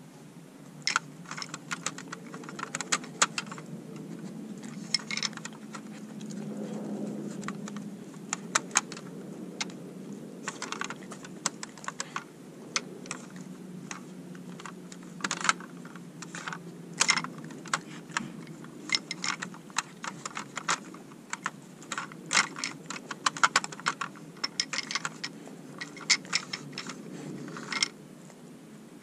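Plastic clicking and rattling of an interactive dog puzzle toy as a dog noses and slides its rods to uncover the treat pots. The clicks come in irregular clusters.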